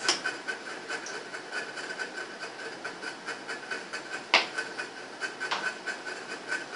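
A steady background hiss with a faint, even pulsing, broken by a few sharp clicks and taps from a plastic hair-cream tube being handled. The loudest click comes about four seconds in.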